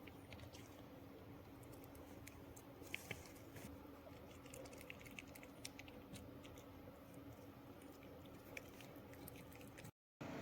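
Faint chewing and crunching: small irregular clicks over a steady low hum, typical of a pug chewing on food it has taken.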